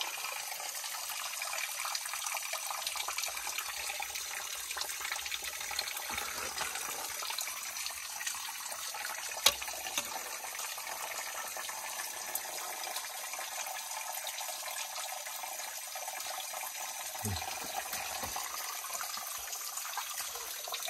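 Water trickling and dripping steadily off a limestone overhang. Two sharp taps come close together about halfway through.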